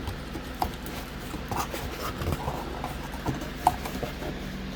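A mailed package being cut and pulled open by hand: scattered crinkles, taps and light knocks, over a low steady hum.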